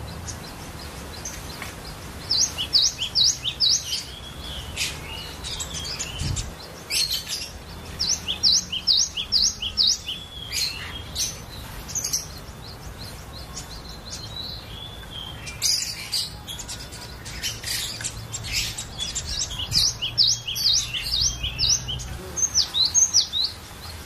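Cinereous tit (gelatik batu) singing: fast runs of short, sharp, repeated whistled notes, several to the second, given in bursts of a few seconds with short pauses between. A steady low hum sits underneath, with one brief low thump about six seconds in.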